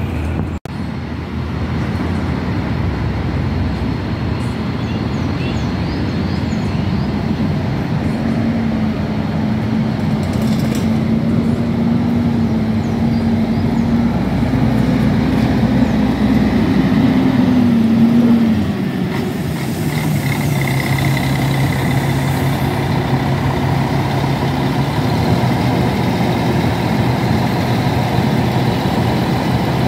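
Three-axle double-decker coach's diesel engine pulling away and passing close by, its note climbing for about ten seconds, then dropping sharply to a lower steady note about two-thirds of the way through.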